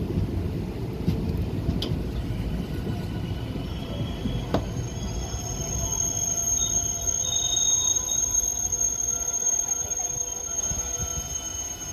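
Indian Railways passenger train running on the rails with a steady low rumble. About halfway through a high, thin wheel squeal sets in and holds, and there is a single sharp knock just before it.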